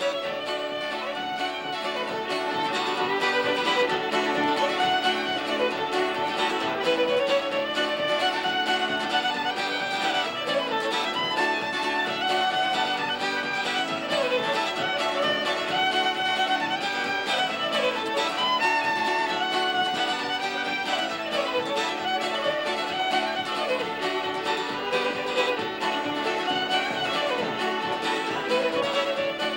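Background music: a fiddle tune with accompaniment, playing continuously.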